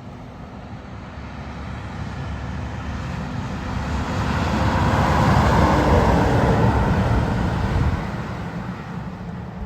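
Western Star 4700SF logging truck's diesel engine driving by, its rumble growing louder to a peak about halfway through, then falling away sharply near the end.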